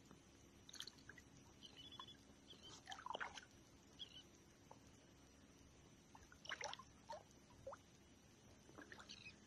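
Near silence, with faint scattered little splashes and drips of water from a hooked fish being drawn along the surface.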